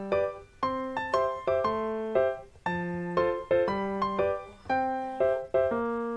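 Background piano music: light chords and melody notes struck at a steady, bouncy pace of about two a second, each note dying away.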